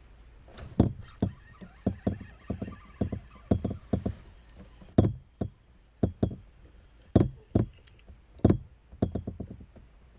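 Irregular knocks and thumps on a fishing kayak's hull, about two a second and unevenly spaced, some with a short high ring.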